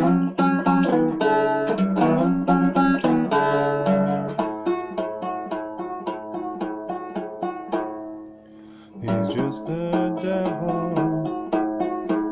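Music played on plucked string instruments, a fast run of picked notes in a banjo-like style. It thins out and goes quiet for about a second near eight seconds in, then starts up again.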